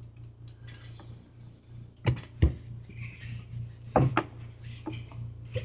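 A handful of short sharp knocks and clinks, the strongest about two and a half seconds in, over a faint steady low hum.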